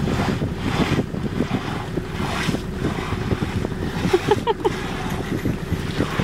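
Elephant bull rubbing his head and trunk against a doum palm, his hide scraping on the bark in repeated strokes about every two-thirds of a second. Wind rumbles on the microphone underneath.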